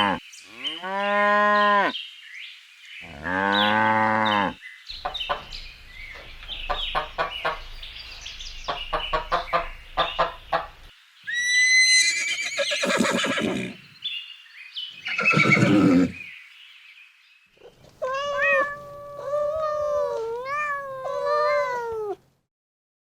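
A run of different farm animal calls one after another: cattle mooing at the start, then rapid pulsed calls, high falling whinny-like cries about halfway, and a long wavering call near the end.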